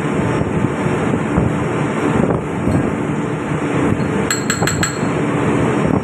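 Steady, loud running noise of a ship's engine-room machinery. About four seconds in, a quick run of four light metal clinks comes as the steel fuel-pump housing is handled on the bench.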